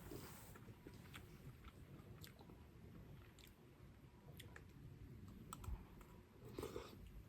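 Quiet eating sounds: faint, scattered light clicks and taps with chewing, and a short soft rush near the end.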